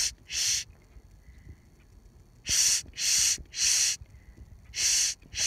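A dog handler's short hissing "shh" sounds, two, then three, then two, each under half a second.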